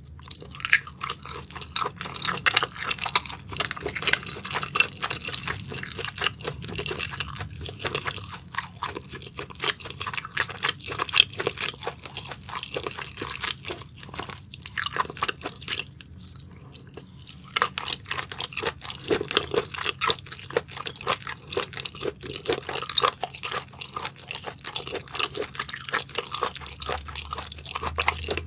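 Close-miked ASMR chewing of spicy sauced shellfish: a dense run of quick mouth clicks and smacks, with a brief pause about halfway through.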